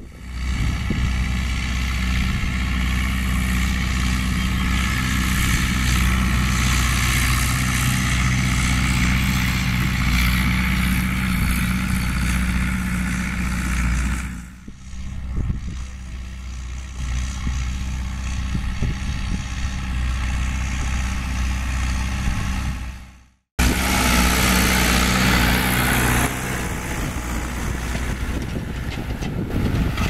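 John Deere 2850 tractor's diesel engine running steadily under load while it pulls an offset disc harrow through the soil. The sound changes abruptly about halfway through and drops out for an instant about three quarters of the way in.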